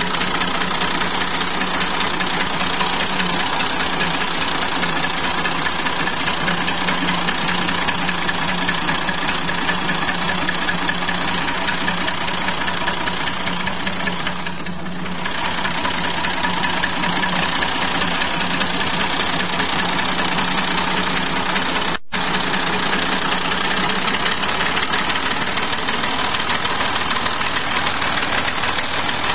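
Tractor's diesel engine running steadily on an 80% jatropha biodiesel, 20% fossil diesel blend. The level dips briefly about halfway and cuts out for an instant about 22 seconds in.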